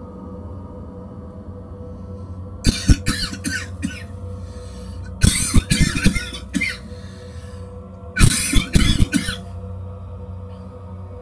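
A person in bed coughing in three fits, each a run of several quick, harsh coughs, a few seconds apart, over a steady low hum.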